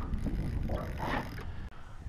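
A spinning reel whirring and clicking as a hooked trout is fought and line is worked, loudest about a second in, over a steady low rumble.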